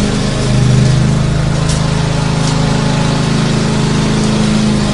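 Lawn mower engine running steadily at a constant speed, an even engine drone with a hiss over it.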